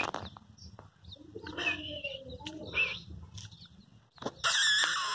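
Birds calling: a few short calls, then a louder call lasting under a second near the end.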